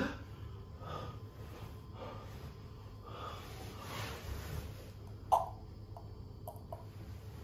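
A man breathing heavily through his nose, faint and uneven, with a single sharp click about five seconds in.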